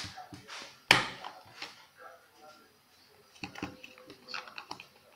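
Plastic handling clicks from a Fujifilm FinePix S5600 camera body. There is one sharp click about a second in, then lighter clicks and rattles as its battery compartment is opened and the AA batteries are handled.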